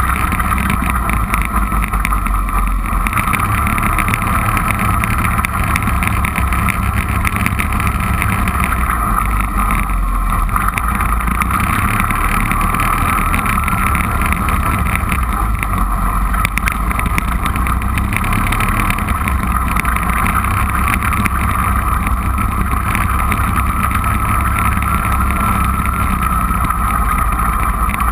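Four-wheeler (ATV) engine running steadily while the machine is ridden along a dirt trail, with no big revving.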